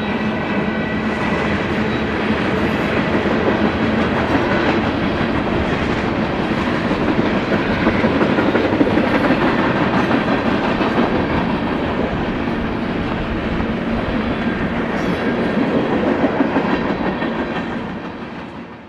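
Freight cars of a BNSF manifest train rolling past on the track: a steady noise of steel wheels on rail that fades out near the end.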